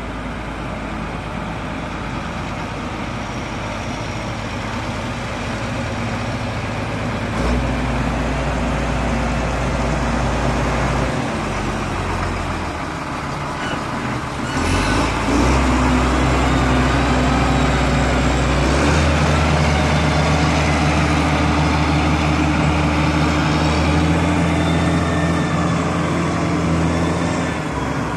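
Foton wheel loader's diesel engine running as the loader drives and works its bucket, its note rising and falling several times. There is a brief hiss about 14 seconds in.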